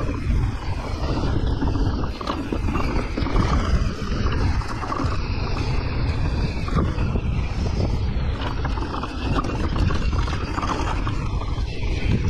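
Santa Cruz Nomad mountain bike ridden along a rough trail: wind rushing over the camera microphone, with tyres scrabbling and the bike rattling in short, irregular knocks.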